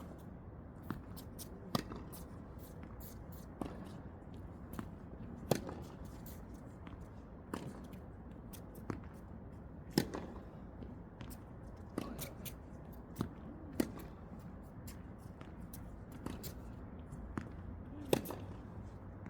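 Tennis balls struck by rackets and bouncing on the court during a rally drill: sharp pops every second or so, some louder and some fainter, over a low steady background.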